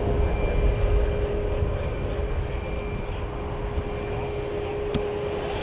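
Strong wind buffeting the microphone in gusts, under the steady hum of a jet airliner's engines.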